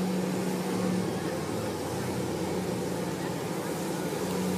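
Steady mechanical hum from the human-cannonball cannon's lifting machinery as the barrel is raised toward its firing angle, over a murmuring crowd.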